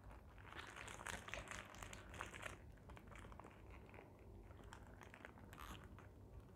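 Faint crinkling and rustling of a paper food wrapper being handled around a piece of fried chicken, busiest in the first couple of seconds and again briefly near the end.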